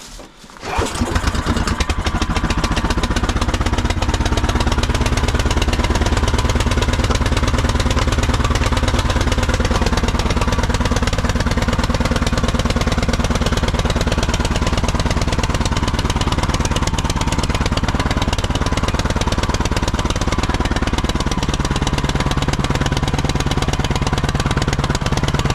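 Snowblower engine catching about a second in, then running steadily at a fast, even pulse, left on choke because it is very cold.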